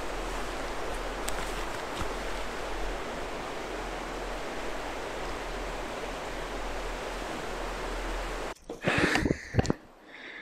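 Steady, even rushing outdoor noise that cuts off abruptly about eight and a half seconds in, followed by a few brief, louder bursts.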